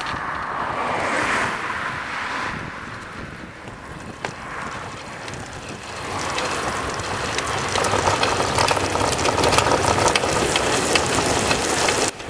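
Wind buffeting the microphone and tyre noise on asphalt from a recumbent cargo bike and its trailer rolling at speed, with a busy rattle of small clicks. It grows louder about halfway through and cuts off sharply near the end.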